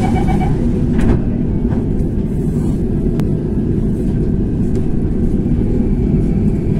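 Steady low rumble and hum inside a metro train cabin, with a rapidly pulsing electronic beep that stops about half a second in.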